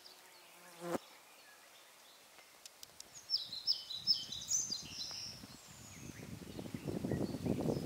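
A flying insect buzzing, growing louder over the last few seconds. Short high bird chirps come about halfway through.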